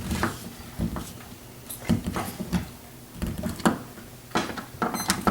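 Irregular clicks and light knocks of deadbolt lock hardware being handled on the door.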